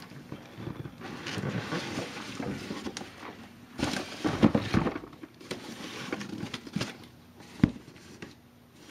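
Cardboard rubbing and scraping as an inner box is slid out of an outer shipping box, with several bumps in the middle and one sharp knock near the end as the box is set down on the counter.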